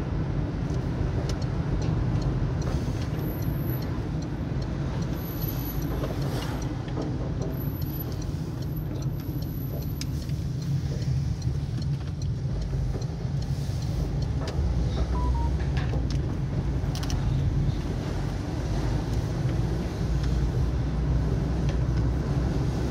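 Car on the road: a steady low rumble of engine and tyres, with a few faint clicks.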